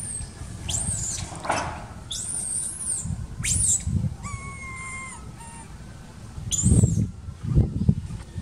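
Long-tailed macaques squealing during a scuffle: several short, very high-pitched calls that arch up and fall away, a second or two apart. A steadier whistling call comes in the middle, and low rumbling thumps are loudest near the end.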